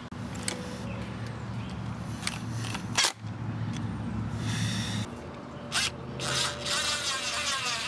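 A screw being driven through a plastic transducer mounting bracket into an aluminum boat transom, with a sharp click about three seconds in and a raspy run of the driver near the end, over a steady low hum.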